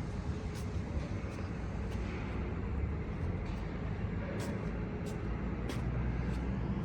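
Diesel engine of a small portable concrete mixer running steadily with a low, even hum, with scattered sharp clicks or knocks over it.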